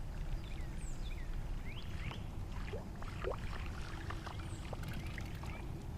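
Open-water ambience from a small fishing boat on a lake: a steady low rumble, with scattered short chirps and a few light clicks above it.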